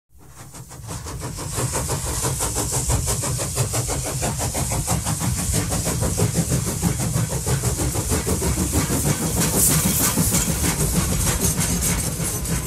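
Small engine of a ride-on miniature railway locomotive running with a rapid, even chugging and some hiss. It fades in over the first couple of seconds, then holds steady.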